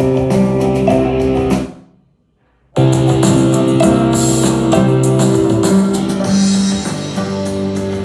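Music with guitar and drums played back through a portable Bluetooth speaker. It fades out about two seconds in, goes silent for about a second, then cuts back in suddenly.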